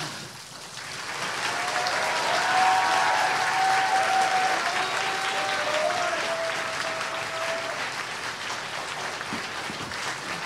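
A congregation applauding, swelling about a second in and then slowly tapering off, with a few long cheering calls over the clapping.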